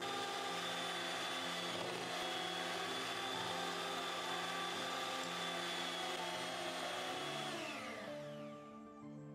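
Electric hand mixer running steadily with its beaters in creamed butter and sugar, with a high motor whine; near the end it winds down with a falling whine and stops.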